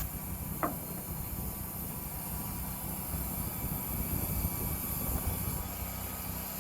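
An engine running steadily, with a short falling whistle about half a second in.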